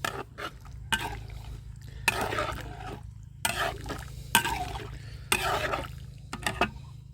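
A ladle stirring thick coconut curry in a pot: a series of wet scraping strokes, some starting with a knock against the pot, over a steady low hum.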